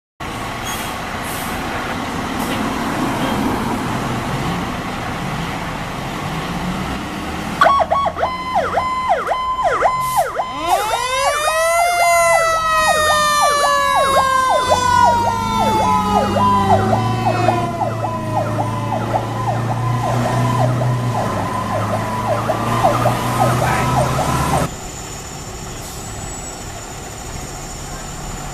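A fire engine (a 1991 Simon Duplex/Beck pumper) leaving the station on a call. Its engine rumbles, then a fast-pulsing electronic siren starts. A wailing siren winds up to a peak and slowly winds back down over the pulsing. Near the end the sirens cut off abruptly to a quieter background with a faint high steady tone.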